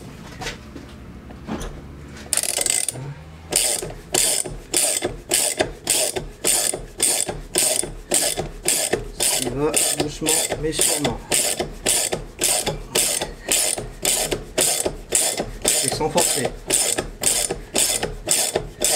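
Ratchet wrench clicking in steady back-and-forth strokes, about two a second from a few seconds in. It is turning the screw of a silent-block press to force a rubber bushing into a car's upper rear wishbone, slow going because the bushing is hard to get through.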